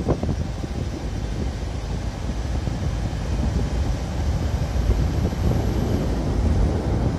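Wind buffeting the microphone: a steady, uneven low rumble, with a short knock just at the start.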